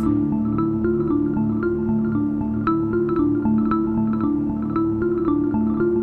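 Background music: a melody of short struck notes over held lower notes that change pitch in steps.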